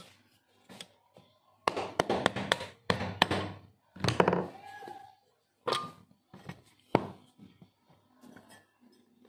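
Sharp metal knocks, taps and clatter as the end cover and rotor of a ductable AC fan motor are worked loose and pulled off. The knocks come in a quick cluster about two seconds in and again around four seconds, then a couple of single knocks.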